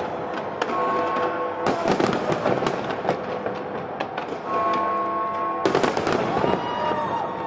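Aerial fireworks display: shells bursting in repeated sharp bangs over a continuous crackle, with a tight cluster of loud bangs about six seconds in.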